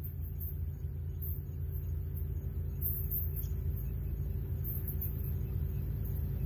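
Low, steady rumble with a faint constant hum, from a stopped freight train's diesel locomotives idling far up the line.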